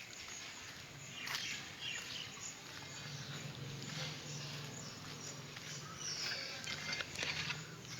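Outdoor ambience with scattered bird chirps and a few clicks, and a low steady hum that comes in about three seconds in.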